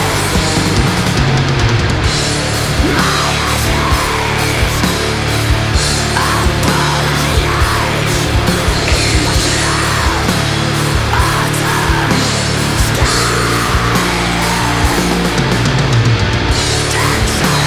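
Finnish black metal playing loud and dense: distorted guitars and fast, pounding drums with no let-up.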